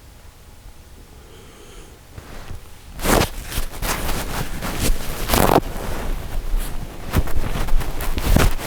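Quiet for about three seconds, then a run of loud, irregular rustling and scuffing noises of movement that continues to the end.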